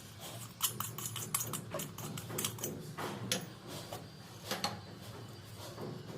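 Irregular clicks and light taps from plumbing fittings and hand tools being handled, several a second, over a low steady hum.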